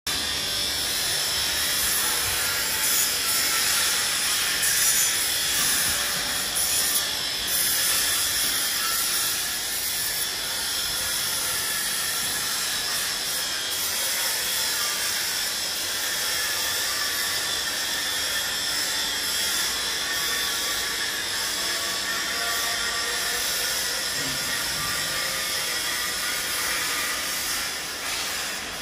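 Steady factory machinery noise from a steel-grating workshop: an even high hiss with faint wavering whines, and a few brief louder surges in the first several seconds.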